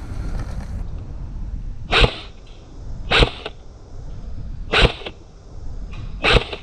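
Airsoft gun firing four single shots, each a short sharp pop, spaced about one and a half seconds apart, over low wind noise on the microphone.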